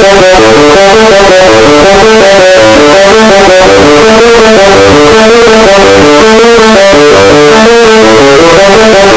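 Electric guitar music played very loud, a run of notes changing several times a second.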